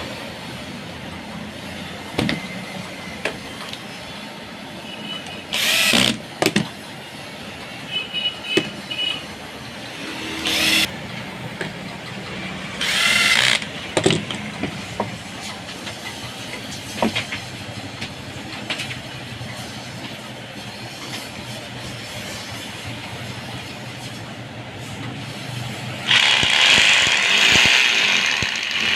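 Electric hammer drill switched on in short bursts, then run for about two and a half seconds near the end, over a steady background noise.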